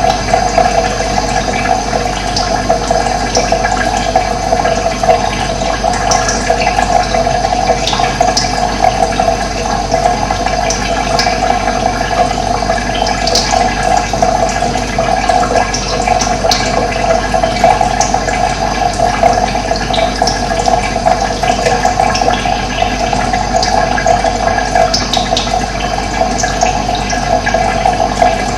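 Running water, a steady rushing flow, with short bird chirps now and then over it.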